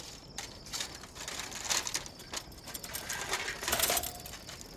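A run of irregular clattering and rustling, with scattered knocks and a brief ringing tone near the end, over the steady chirring of night crickets.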